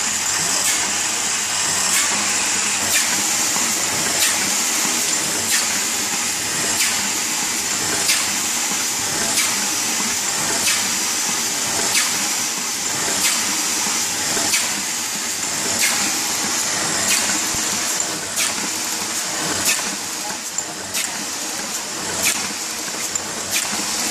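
Paper cup fan offset printing press running: a steady mechanical whir with a high hiss, and a sharp clack repeating a little under twice a second.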